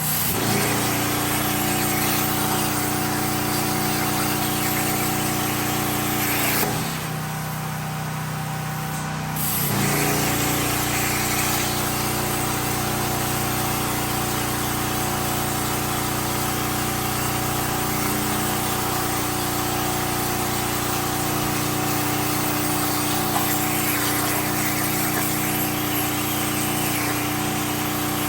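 Electric air compressor running steadily off a generator with a hiss over it. Its motor winds up at the start, cuts out about seven seconds in, and starts again about three seconds later.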